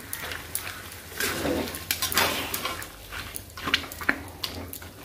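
Metal spatula scraping and clacking against a kadhai in irregular strokes, stirring and mashing boiled potatoes and chickpeas into thick masala.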